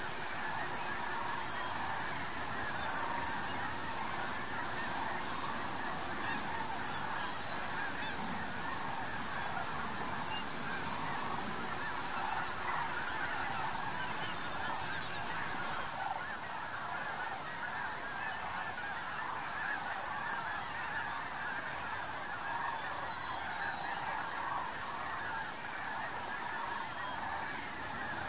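A large flock of geese calling together, a steady unbroken chorus of many overlapping honks.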